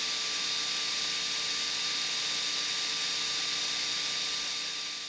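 Sony VAIO laptop's cooling fan running steadily: an even airy hiss with a few faint steady whine tones through it, fading out near the end.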